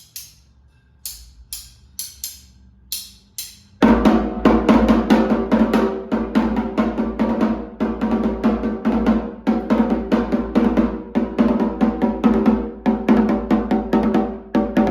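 Rumpi atabaque with an angelim-wood shell and goat-skin head being played: a few separate sharp strokes, then about four seconds in a fast, dense candomblé rhythm that runs on without a break.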